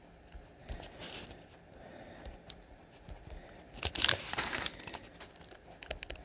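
Small plastic bags of diamond-painting drills crinkling as they are picked up and shifted about, loudest about four seconds in. Between the handling there are quieter scratches and light ticks of a pen writing on paper stickers.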